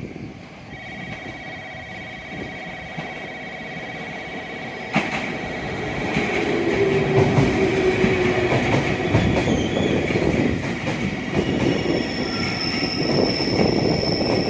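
A train running into or through the station. Its wheels and motors get louder about five seconds in, over steady high whining tones.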